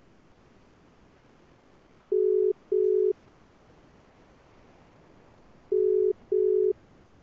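Telephone ringback tone: a steady low tone in double beeps, two double rings a few seconds apart, the sign that the called phone is ringing and has not been answered.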